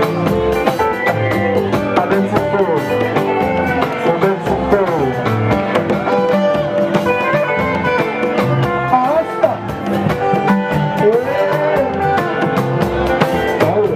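Music with plucked electric guitar lines over a steady drum beat, with a few sliding notes.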